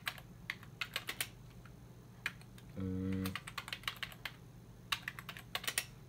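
Typing on a computer keyboard: clusters of quick key clicks, with a brief low hum about halfway through.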